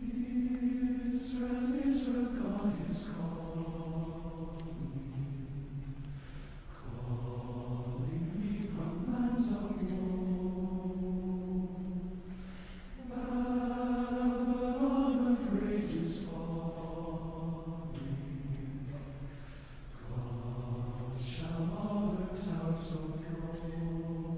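Slow, chant-like singing in long held notes, in four phrases with short breaks between them.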